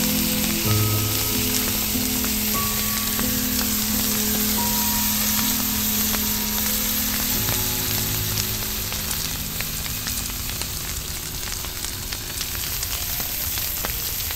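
Ribeye steak and mushrooms sizzling in a hot cast-iron skillet, a steady frying hiss dotted with the fine crackle of spitting fat.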